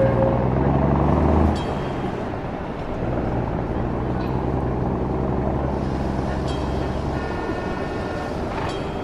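Added street-traffic sound effect: motor vehicle engines running steadily, louder for the first second and a half. A brief higher tone sounds about two-thirds of the way through.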